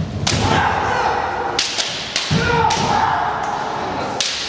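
Kendo sparring: bamboo shinai clack and strike armour in several sharp cracks, the fighters stamp on the wooden floor and let out long drawn kiai shouts.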